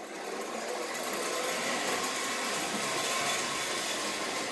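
Standard-gauge model electric locomotive, driven by an O-gauge electric motor modified for standard gauge, running along tinplate track with a steady mechanical running sound of motor and wheels. The sound comes up over the first second, then holds steady.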